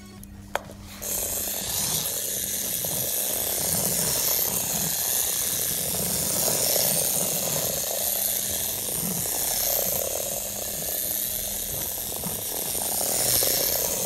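A click, then about a second in the vibration motor of a Hexbug Transformers battle-bot toy starts a loud, steady buzzing as the eight-legged toy runs across a hard wooden floor.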